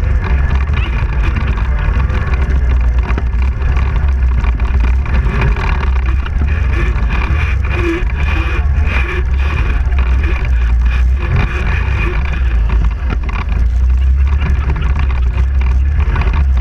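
ATV (quad bike) engine running steadily while the quad is ridden along a muddy dirt track, close to a camera mounted on the machine. The sound is loud and even, strongest in the deep low range.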